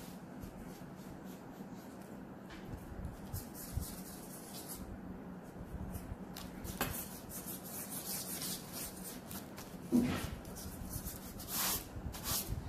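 Pencil scratching and rubbing on drawing paper in short repeated strokes, with a louder stroke about ten seconds in. A faint steady hum runs underneath.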